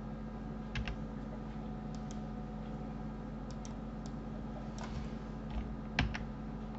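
Computer mouse and keyboard clicks: about nine short, sharp clicks at irregular intervals, the loudest about six seconds in, over a steady low electrical hum.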